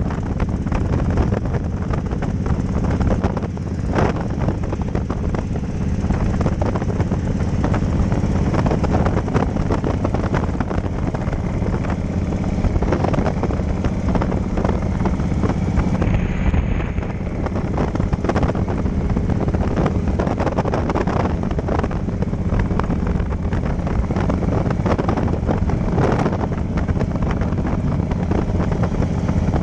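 Cruiser motorcycle engine running steadily at road speed, with wind rushing and buffeting over the microphone.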